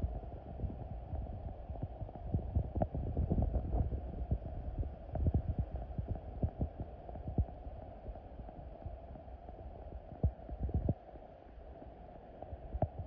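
Muffled, dull rumble with irregular low knocks and thumps, as heard by a phone microphone held underwater in a tide pool.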